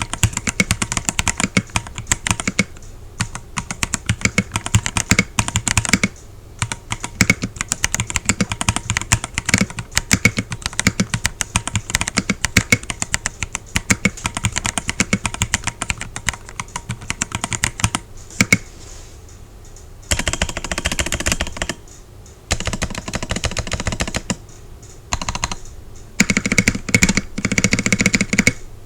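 Typing on a Redragon K649 Elf Pro mechanical keyboard: rapid key presses in quick runs broken by a few short pauses.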